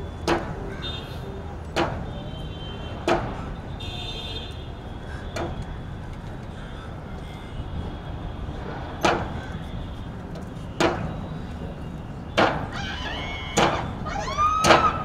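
Irregular sharp knocks on wooden planks, one every one to two seconds, over a steady outdoor noise bed. Near the end a few high calls rise and fall.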